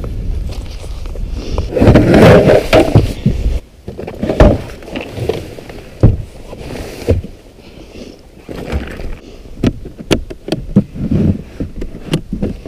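Ice-fishing gear being handled at a plastic sled on the ice: a low rough scraping rumble for the first few seconds that stops suddenly, then knocks and thumps as a foam pad and a plastic rod case are lifted out, and a quick run of sharp clicks near the end as the case is opened.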